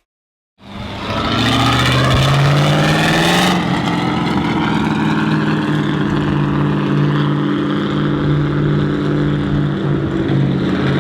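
A car engine starts up loud, its note rising as it revs with a hissing rush over it for the first few seconds, then it runs at a steady pitch under way.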